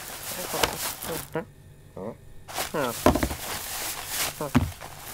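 A cartoon cat's voiced grunts and mews, interleaved with rustling from the grocery bag it is digging through. There is a thud about three seconds in as a box lands on the floor.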